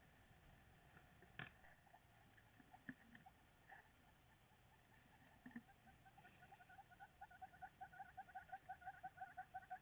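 A bird calling a fast series of repeated whistled notes, about four a second, starting about six seconds in and growing louder, over faint outdoor background; a single sharp click about a second and a half in.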